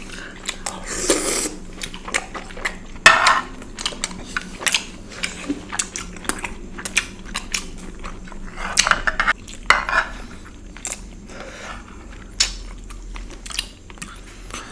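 Cutlery clinking and scraping against dishes while sweets are eaten, with chewing sounds between the clicks. There are many short, sharp clicks throughout, the loudest about three seconds in.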